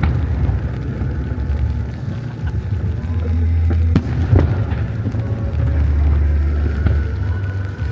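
Fireworks bursting: deep booming and rolling rumble, with sharp cracks about four seconds in.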